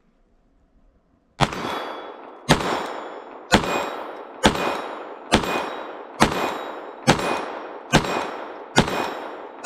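Glock 44 .22 LR pistol firing CCI Mini-Mag 40-grain rounds: nine shots at a steady pace of about one a second, starting about a second and a half in, each followed by a ringing tail.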